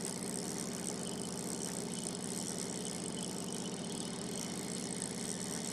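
A fishing boat's engine idling with a steady, even hum.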